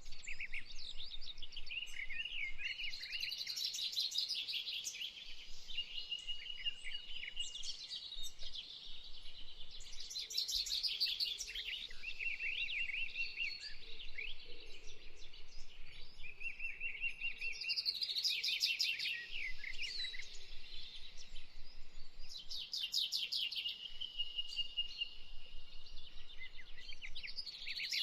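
Small birds singing and chirping without a break: rapid high twittering and trills, with louder bursts of song returning every several seconds.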